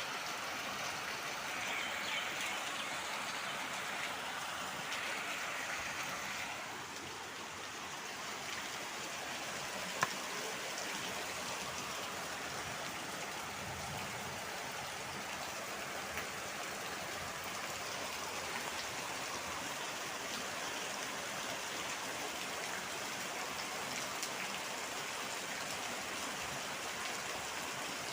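Steady rush of running floodwater, even and unbroken, with a single sharp click about ten seconds in.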